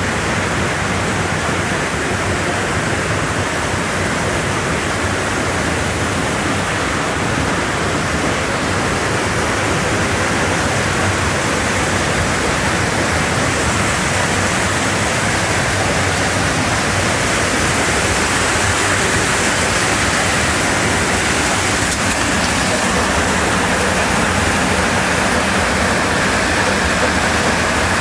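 Creek water rushing steadily over rocks and between pools.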